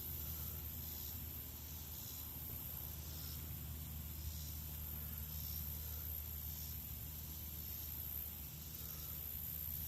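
Quiet, steady outdoor background hiss with a low hum and a constant high-pitched band, plus soft high chirps repeating roughly once a second.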